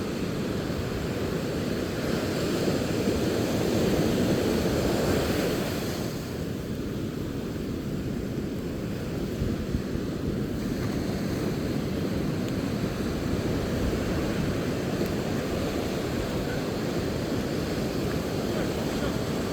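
Surf breaking and washing in, with wind on the microphone; the surge is louder for a few seconds near the start.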